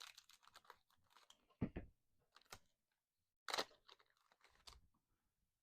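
Trading cards and their foil pack being handled: soft rustling, sliding and light clicks, with two louder crinkles, about a second and a half in and again about three and a half seconds in.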